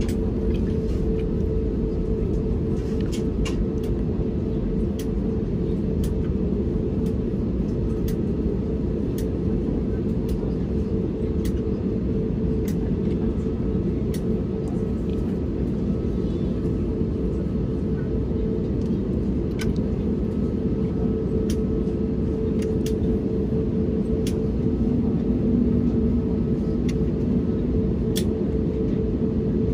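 Cabin noise of an Airbus A320neo on the ground with its CFM LEAP-1A engines at low power: a steady low rumble with a steady hum, and scattered light clicks.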